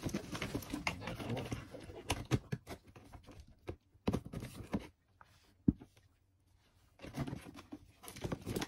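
Handling noises: rustling with many small clicks and light knocks as objects are moved about by hand, one sharper knock a little over halfway, and a brief lull just before it.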